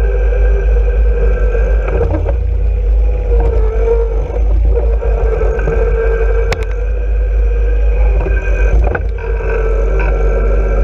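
John Deere 1023E compact tractor's three-cylinder diesel engine running steadily, with a few sharp knocks.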